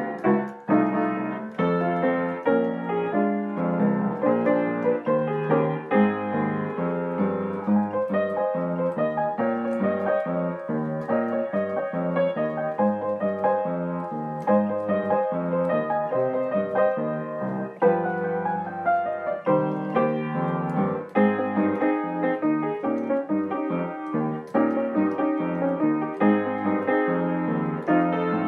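Background solo piano music: a lively run of quick notes.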